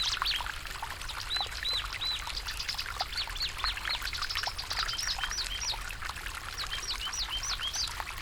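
Small birds chirping in quick, repeated high notes over the steady rush of a flowing stream.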